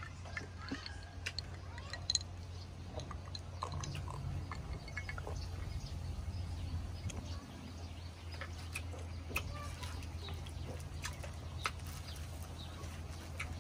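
Someone eating: chewing with scattered small clicks of utensils or dishes, over a steady low hum. Faint animal calls sound in the background.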